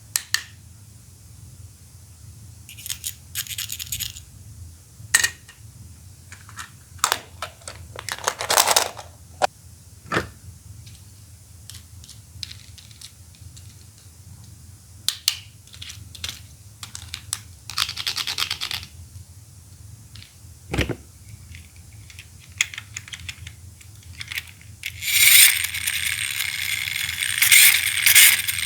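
Plastic Poké Ball toys being handled, with scattered sharp clicks and short scrapes and rattles. Near the end, a continuous busy rattling sets in.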